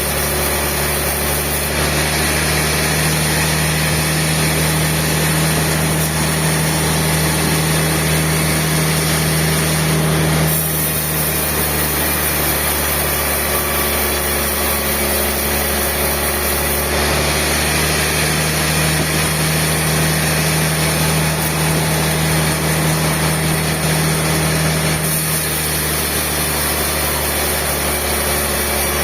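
Sawmill machinery running with a steady engine-like hum. Its tone shifts slightly a few times without stopping.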